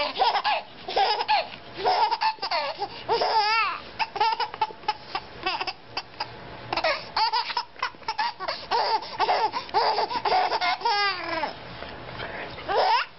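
Baby laughing hard in quick repeated bursts, with two high squeals, a few seconds in and again later.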